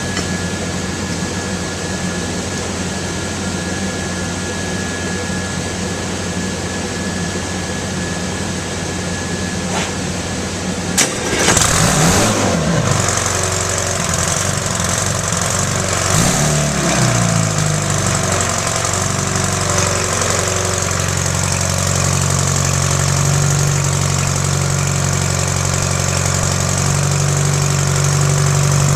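Freshly rebuilt Detroit Diesel 4-53 two-stroke diesel engine running steadily; about eleven seconds in a sharp click, then the engine revs up and falls back twice before settling into a steady idle.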